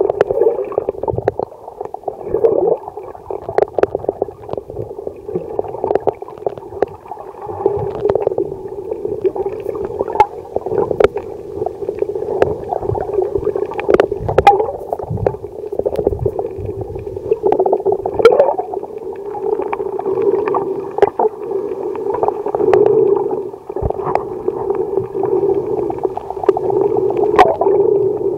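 Muffled underwater sound picked up by a camera held below the surface: swelling, gurgling water movement with scattered sharp clicks.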